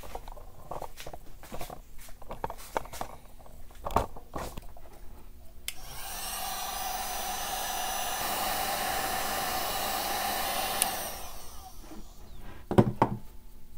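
Electric heat gun switched on about six seconds in, blowing steadily for about five seconds with a low hum, then cut off, as it shrinks heat-shrink tubing onto a braided cord. Before it come light handling clicks and a knock.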